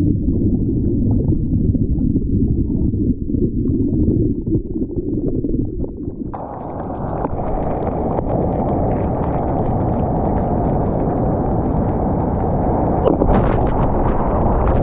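Churning white water from a broken wave heard underwater through a GoPro: a loud, muffled rumble of turbulence and bubbles. About six seconds in, the sound abruptly turns brighter and hissier, and a sharp knock comes near the end.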